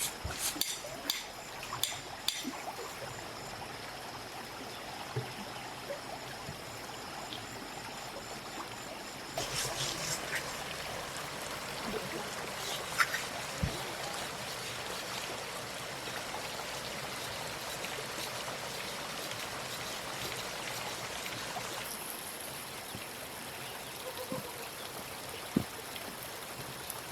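Running water trickling steadily, with a few sharp clicks in the first few seconds.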